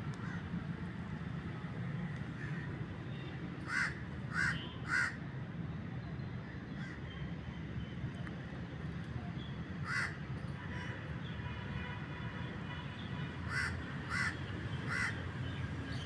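A crow cawing in short harsh calls: three caws about four seconds in, a single caw near the middle, and three more near the end, over a steady low background rumble.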